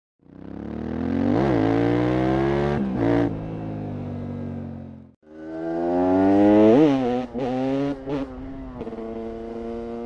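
Motorcycle engine revving in two passes. Each swells up in pitch to a sharp peak and then drops back, with a few short sharp cracks in between.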